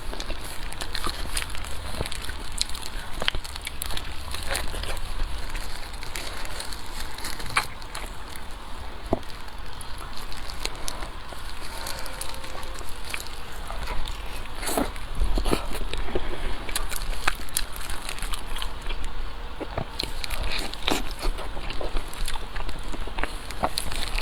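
Close-miked eating sounds: wet chewing and mouth smacks with irregular sharp clicks and crackles.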